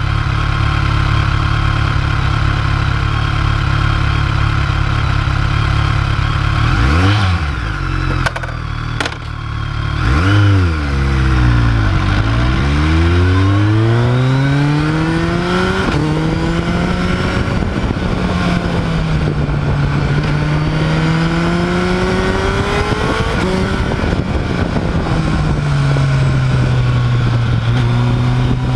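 Motorcycle engine at road speed with steady wind rush. Several times its pitch drops and climbs again as the throttle is rolled off and back on through bends, with quick swoops down and up about a third of the way in.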